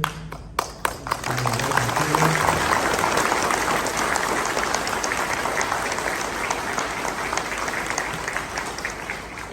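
An audience in a large room applauding. A few scattered claps swell within about a second into steady, full applause that eases off slightly near the end.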